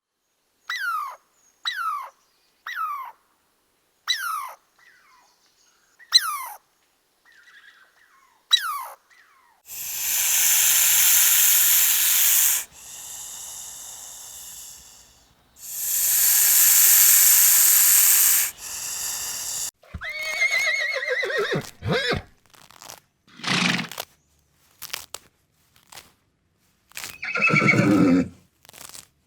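A string of animal calls: short, high, falling chirps about once a second, then two long breathy blasts, then horses whinnying in several pitched, wavering calls that fall in pitch.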